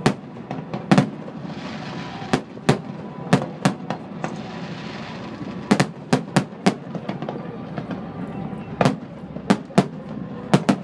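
Fireworks show: an irregular series of about fifteen sharp bangs, some coming in quick pairs.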